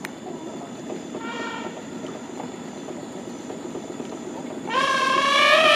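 Bornean pygmy elephants trumpeting: a short, faint call about a second in, then a loud, long trumpet starting near the end. Both are heard over a steady low rumble.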